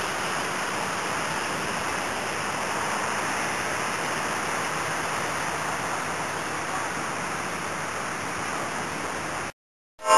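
A steady, even rushing noise, like falling water, with no rhythm or pitch. It cuts off abruptly near the end.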